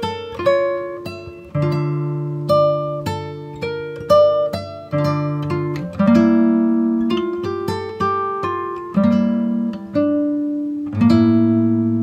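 Background music: an acoustic guitar playing picked notes and chords, each ringing out and fading, with fuller chords struck several times.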